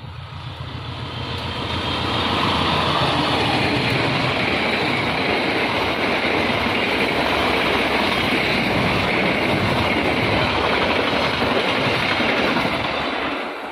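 KAI Argo Lawu express passenger train passing at speed close by: the noise builds over the first couple of seconds as the locomotive arrives, then holds as a steady rush of wheels on rail while the coaches go by, easing a little near the end.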